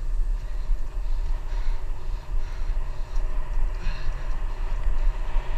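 Wind buffeting a GoPro's microphone on a moving bicycle, a heavy rumble that rises and falls without a break.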